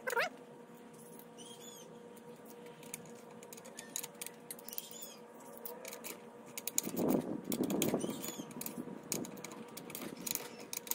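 Scattered light metallic clicks and clinks of a socket and ratchet fitting the cable lug nuts onto a winch motor's terminals. A denser patch of clicking and handling noise comes about seven seconds in.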